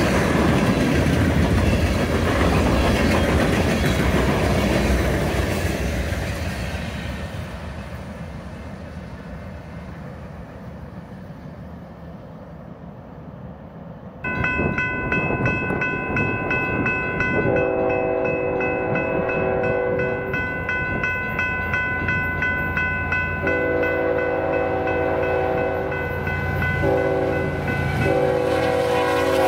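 A passing freight train's rumble fading away. Then, about halfway through, a diesel locomotive's multi-chime horn comes in suddenly: its upper notes are held steady, while its lower notes sound long, long, short, long, the grade-crossing signal.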